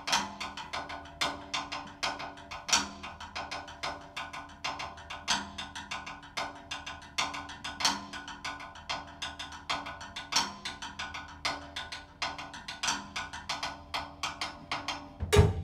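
Drum kit played with sticks in an Afro-Cuban-influenced groove: a steady stream of quick, sharp, evenly spaced strokes with regular louder accents and ringing drum tones, and a heavy low hit just before the end.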